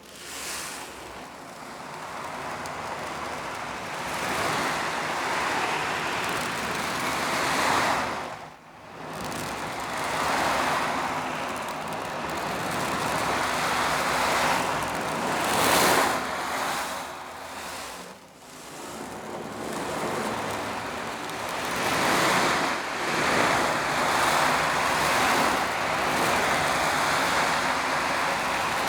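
Foley imitation of sea waves: a rushing hiss that swells and ebbs in slow surges, twice falling away almost to nothing before building again.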